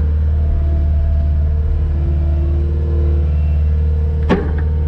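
Skid steer's diesel engine idling steadily, heard from inside the cab. A single knock comes about four seconds in as a wooden board is set against the attachment's steel claws.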